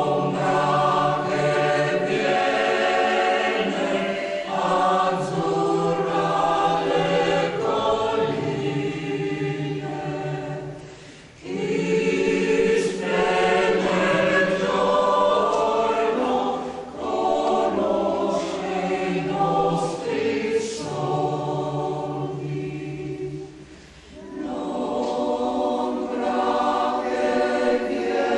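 Mixed choir of men's and women's voices singing in parts, the notes held long, with brief breaks between phrases about eleven seconds in and again near twenty-four.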